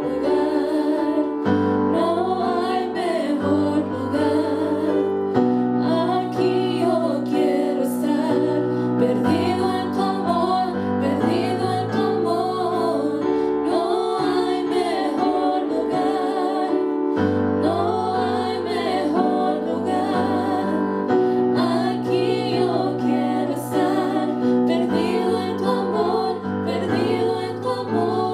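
Three women singing a gospel song together into microphones over an instrumental accompaniment, whose held chords change about every two seconds.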